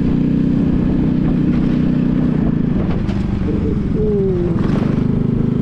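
A 1970 Honda SS50's small 49 cc single-cylinder engine running steadily at cruising speed while under way, over low wind noise. Two short knocks, about three seconds and nearly five seconds in, as the bike rides over broken, potholed pavement.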